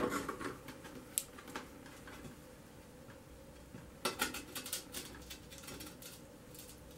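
Faint clicks and taps of stained glass and running pliers being handled as a scored piece is worked and broken, with a small cluster of clicks about four seconds in.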